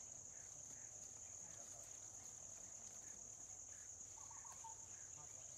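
Faint, steady, high-pitched drone of insects in the forest, with one brief faint chirp about four seconds in.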